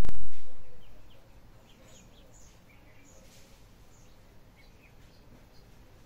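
A loud low thump at the very start that dies away over about a second, then faint outdoor background with small birds chirping now and then.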